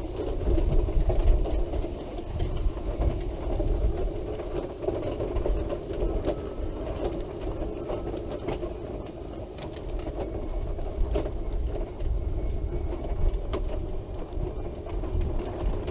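Wheelchair travelling along a road: a steady drone with low rumble and scattered light clicks and rattles from the wheels over the surface.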